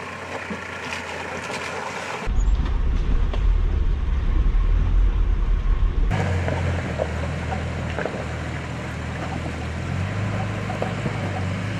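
Four-wheel drive vehicle driving slowly along a rough track, with steady engine and tyre noise. The sound changes abruptly twice, becoming much louder and deeper for a few seconds in the middle.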